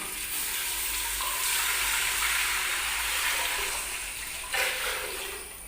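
Water being poured into a pressure cooker of hot ghee and oil with whole spices and onion, a steady pouring and sizzling noise with a brief surge about four and a half seconds in, then dying down near the end.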